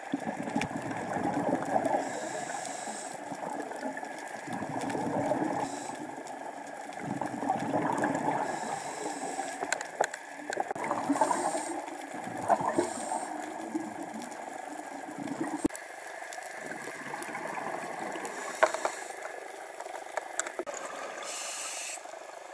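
Scuba diver's exhaled bubbles heard through an underwater camera housing, a gurgling rush of bubbles rising and fading every few seconds, with a few sharp clicks in between.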